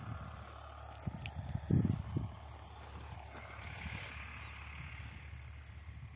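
A steady high-pitched insect trill, with low thumps on the microphone, the loudest about two seconds in.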